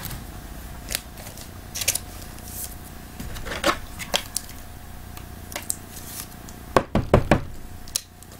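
Trading cards being handled by hand, with scattered short clicks and scrapes as they are slid and tapped. A quick run of sharper clicks comes about seven seconds in.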